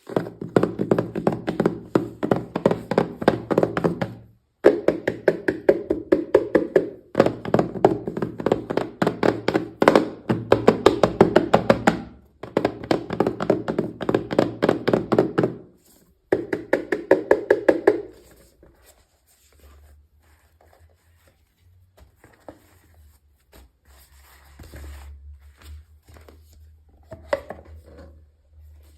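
Rapid, dense tapping or clicking in several long runs a few seconds each, stopping about 18 seconds in; after that only faint scattered knocks over a low steady hum.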